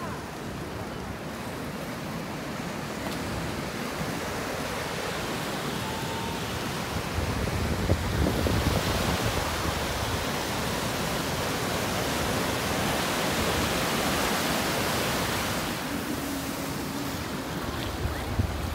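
Ocean surf breaking and washing up a sandy beach, the rush of water swelling about a third of the way in and easing again near the end. Wind buffets the microphone at times.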